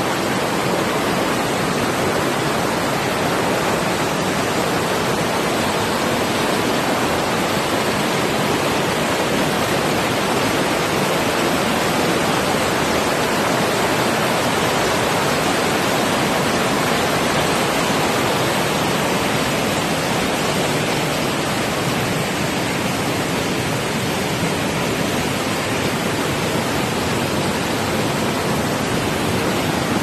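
Water rushing down small waterfalls and cascades over moss-covered rocks: a steady, even rush with no breaks.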